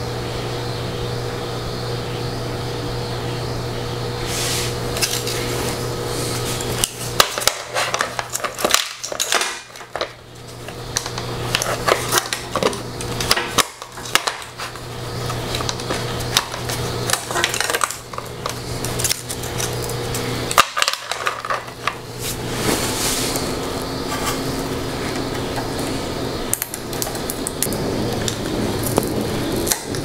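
Irregular clicks, taps and rattles of hard plastic and metal parts being handled and fitted on a printer mechanism, over a steady low electrical hum. The clicking starts about seven seconds in and comes and goes after that.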